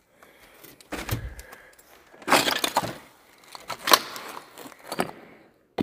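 Footsteps crunching and cracking over rubble and broken plaster: a few separate crunches, the loudest and longest about two seconds in.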